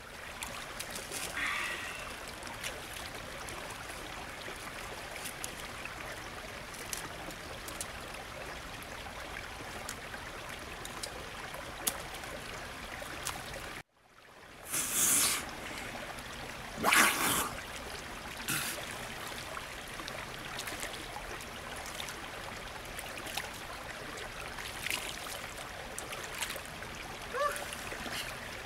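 A small woodland stream trickling steadily, with a brief drop-out about halfway. In the second half a person wades and sits down in the shallow pool, with two louder splashes and a few smaller ones.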